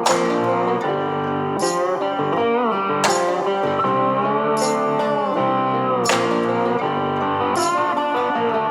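Instrumental music led by guitar, its held notes bending in pitch, over a beat with a hit about every second and a half.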